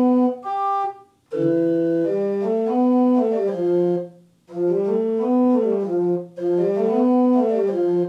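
Church pipe organ pipes sounding under MIDI control: a few held chords, then a repeated phrase of two lines moving up and down together in steps, broken by two short pauses.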